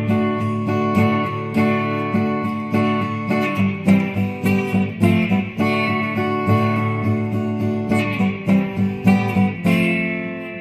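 Guitar music with no singing: picked notes and strummed chords in a steady rhythm, ending on a chord that rings out and starts to fade near the end.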